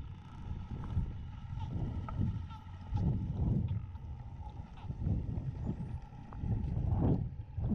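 Underwater sound picked up by a camera in its housing: irregular low rushing surges of moving water over a faint steady hum. There are scattered small clicks and a faint short rising whistle about six seconds in.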